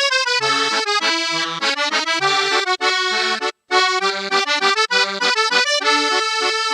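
Accordion music: a tune of short, separated notes over a changing bass line.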